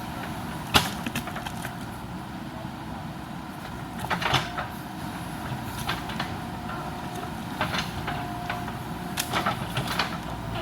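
JCB backhoe loader's diesel engine running steadily with a faint whine, broken by sharp cracks and snaps as bamboo roots and wood break. The loudest crack comes about a second in, with more in clusters later.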